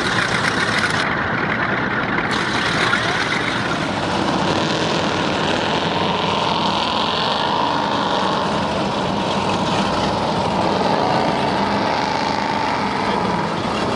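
Powerboat engines running steadily, with an engine tone that wavers up and down in pitch in the second half.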